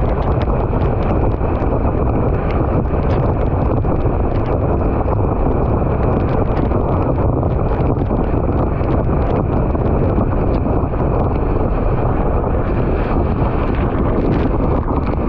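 Loud, steady wind buffeting the microphone, with a faint steady high whine and scattered light ticks underneath.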